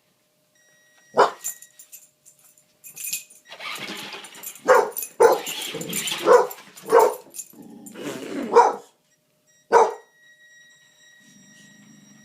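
A dog barking in sharp single barks, about seven of them, several bunched together in the middle. Near the end a thin steady high electronic tone comes from the RC truck; the owner guesses this beeping is due to a battery that is not fully charged.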